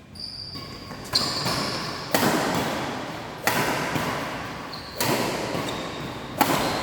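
Badminton rally: five sharp racket strikes on a shuttlecock, about one every second and a half, each ringing on in the hall's echo.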